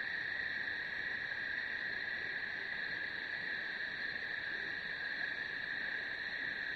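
Steady night insect chorus, a dense high-pitched chirring that never breaks or changes.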